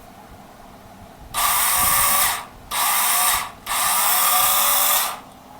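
Battery-powered saw test-run in three short trigger pulls, each a burst of loud motor-and-blade noise that spins up and then stops, the last and longest ending about a second before the end.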